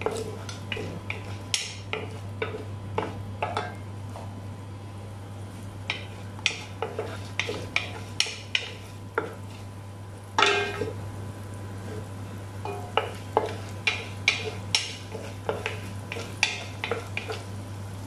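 A wooden spoon stirring sautéing onions in a stone-coated pot, knocking and scraping irregularly against its sides and base. One louder knock comes about ten seconds in.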